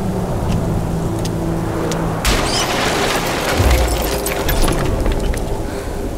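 Film sound effects over a held music tone: about two seconds in, a sudden loud crash with crackling, then a deep boom about a second later.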